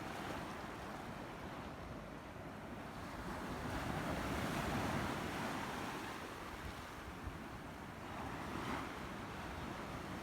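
Sea waves breaking and washing in: the surf swells about four seconds in, eases off, and rises again near the end.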